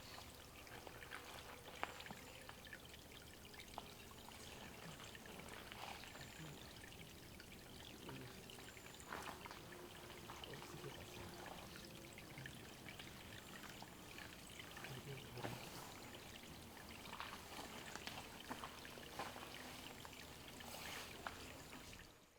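Water trickling steadily into a small forest bird bath, with scattered light drips and splashes. The sound fades out near the end.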